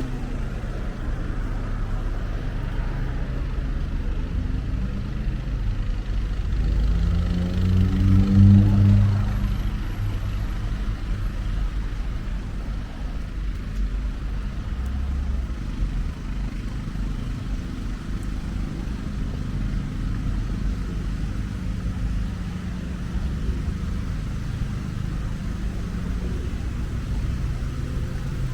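Street traffic: a steady low engine rumble, with one vehicle passing close and loudest about eight seconds in, its engine pitch bending as it goes by.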